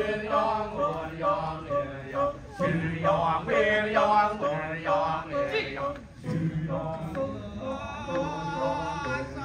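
Balinese kecak chorus of men chanting: sung phrases that slide in pitch over a low held note.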